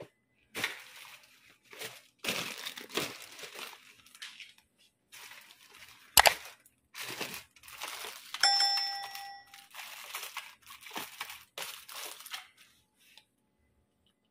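Plastic packaging crinkling and rustling as bagged party-favour toys are handled, with a sharp click about six seconds in and a short ringing tone lasting about a second a little after eight seconds.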